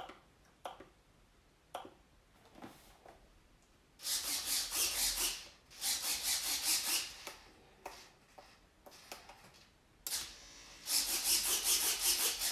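RC glider's wing servos driving the flaps and ailerons as the transmitter controls are moved, in three bursts of buzzing gear rasp about four, six and ten seconds in. A few light clicks of the transmitter's controls come earlier.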